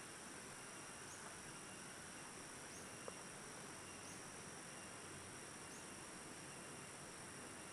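Steady high-pitched chorus of forest insects, with a faint short chirp repeating about every second and a half. One soft click about three seconds in.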